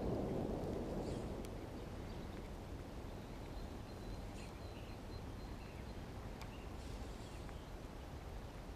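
Faint outdoor ambience by open water, with a few short, faint bird chirps scattered through it. A low rumble fades out over the first second or so.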